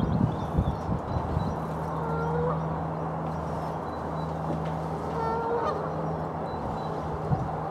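Waterfowl calling: two short pitched calls, about two and five seconds in, over a steady low hum, with a few low thumps in the first second or so.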